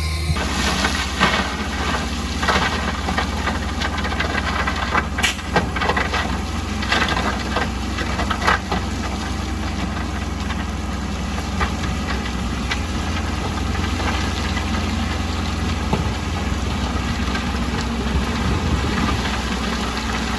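Heavy earthmoving machine's diesel engine running steadily, with a series of sharp metallic clanks and rattles in the first half.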